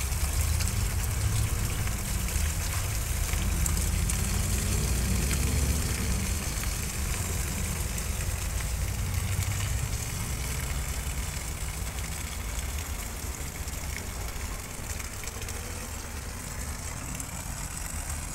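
Fish transport truck's engine idling with a steady low rumble, over a continuous hiss of water spraying and running beside the unloading chute.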